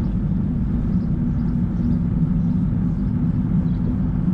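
Steady low rumble of wind buffeting the camera microphone while on the move, with no sharp events.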